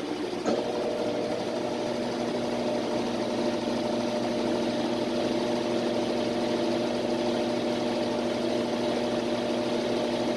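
Washing machine on its spin cycle: the motor starts up again with a click about half a second in, then spins with a steady hum that fades right at the end.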